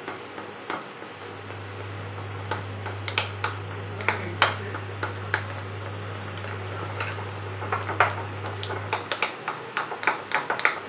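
Metal spoon stirring thick gram-flour batter in a ceramic bowl, clinking and tapping against the bowl's side in irregular strokes that come faster near the end.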